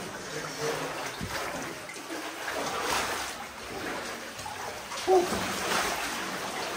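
Water splashing and sloshing around the legs of a person wading through a flooded mine passage, uneven and step by step, with a short sound from a voice about five seconds in.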